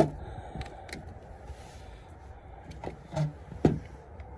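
Spring-loaded battery tester clamps clicking and clunking as they are taken off one battery's terminals and clipped onto another's. The loudest is a sharp snap near the end, just after a duller clunk.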